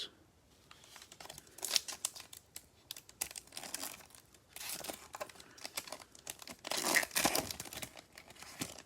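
Crinkling and rustling of Prizm basketball packs and cards being handled, in irregular short bursts, the loudest about seven seconds in.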